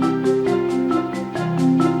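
Background music: a steady beat of quick, bright mallet-like notes over a held bass.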